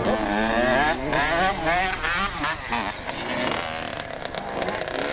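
Two-stroke engine of a Kawasaki KX motocross bike revving hard, its pitch rising and falling again and again as the throttle is worked through a dirt corner.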